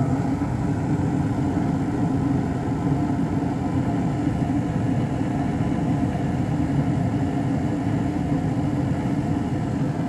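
Gas furnace running in its warm-up stage: the draft inducer fan and the lit gas burners make a steady, even hum, and the circulating blower has not yet come on.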